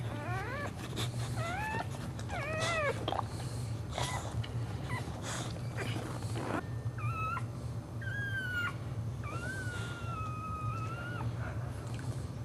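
Dog whimpering and whining during whelping: a run of short rising whimpers in the first few seconds, then longer drawn-out high whines later on, over a steady low hum.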